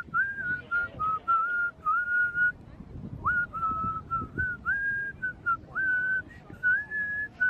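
A person whistling a tune: a string of held notes, many of them starting with a quick upward slide, with a short pause about halfway through.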